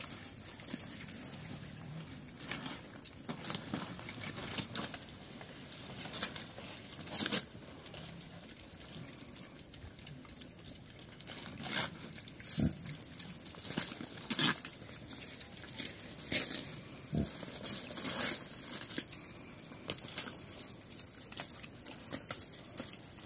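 Several small Chrouk Kandorl pigs feeding on banana leaves: irregular crunching, tearing and rustling of leaves as they chew and root, with an occasional grunt.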